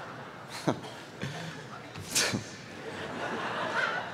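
Crowd laughter fading away, broken by two brief sharp sounds, about a second and two seconds in.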